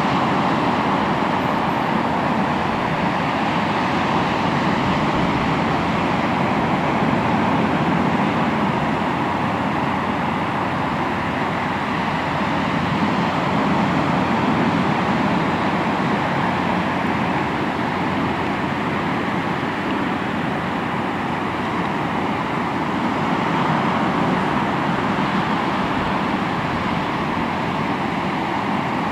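Ocean waves washing on the shore in a continuous steady surge of surf, swelling and easing slowly in loudness.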